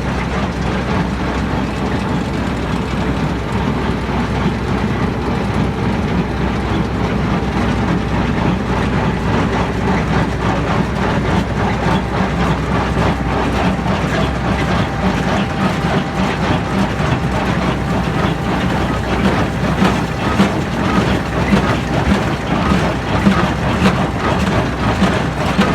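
Tractor running a small square baler under load, with a steady engine note and a continuous rhythmic clatter from the baler's plunger and knotters as it bales straw.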